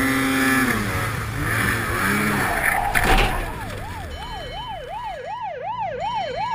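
An emergency vehicle siren starts about halfway through, its pitch sweeping rapidly up and down about twice a second. Before it comes a jumble of noise with falling tones and a sharp knock about three seconds in.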